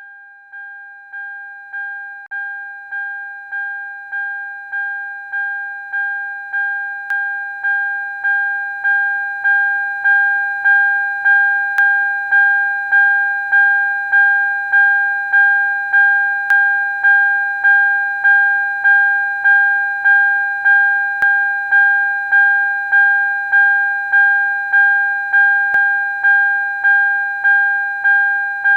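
A repeating electronic alarm-style tone: one high note struck about three times every two seconds, each strike ringing and fading. It grows steadily louder over the first ten seconds, then keeps going at full level.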